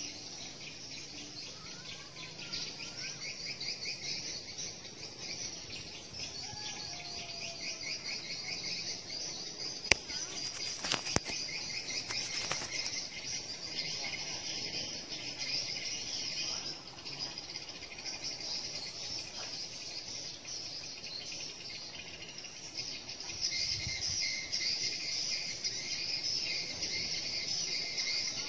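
A steady, shrill chorus of insects trilling high up, with faint bird chirps in the first seconds. Two sharp clicks stand out about ten and eleven seconds in.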